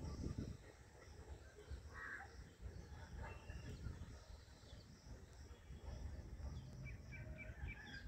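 Faint outdoor ambience of scattered bird calls, among them a crow cawing, with a run of short chirps near the end, over a low steady rumble.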